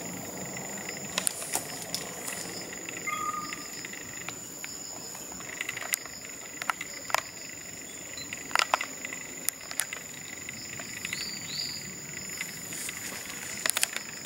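Forest insect sound: a steady high-pitched trill that runs on without a break. Scattered sharp clicks come through it, the loudest about two thirds of the way in, and two short rising chirps sound near the end.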